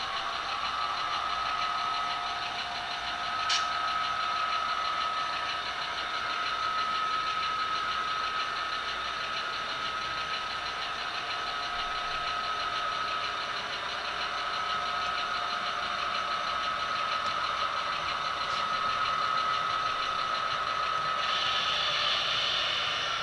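Sound of an HO scale model diesel locomotive's engine running, with a steady high whine throughout. A sharp click comes about three and a half seconds in, and another a few seconds before the end.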